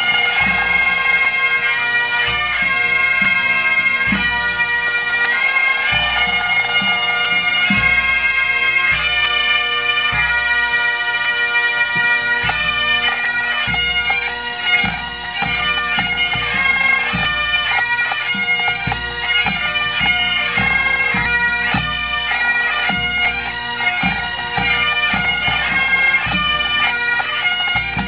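Pipe band playing: many Great Highland bagpipes sounding a tune over their steady drone, with a bass drum beating time underneath.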